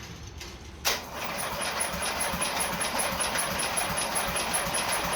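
A sharp click about a second in, then a Briggs & Stratton opposed-twin engine being cranked over steadily by its electric starter off a jumped battery, with an even pulse of about five a second, turning without firing.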